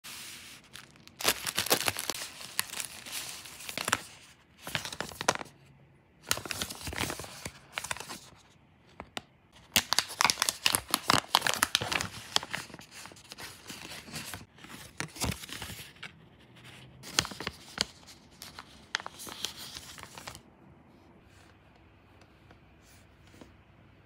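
Small plastic retail packaging being torn open and crinkled by hand, in irregular bursts of tearing and rustling that stop about 20 seconds in.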